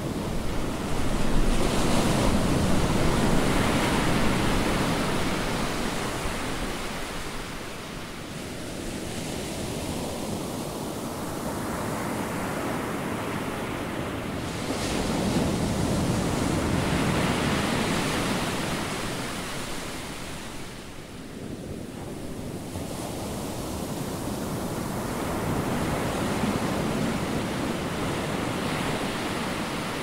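Ocean surf: waves breaking and washing up the shore, a steady rush that swells and ebbs in three slow surges.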